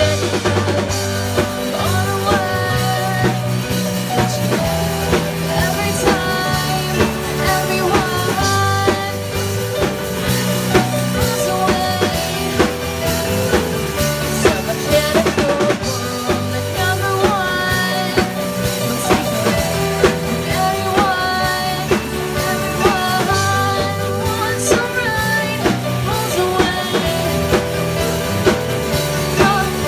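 Rock band playing, with drum kit, electric guitar, bass and a singing voice; the recording sound is poor.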